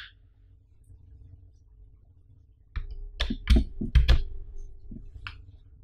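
USB cable plug and black plastic power bank being handled as the plug is fitted into the power bank's port: one sharp click at the start, then a close run of plastic clicks and knocks with dull thumps about three to four seconds in, and two lighter clicks near the end.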